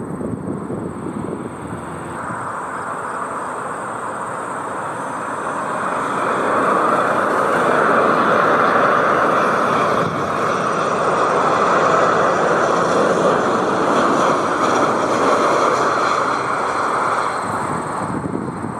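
Narrow-body jet airliner passing, its engine noise swelling about six seconds in, staying loud, and easing slightly near the end.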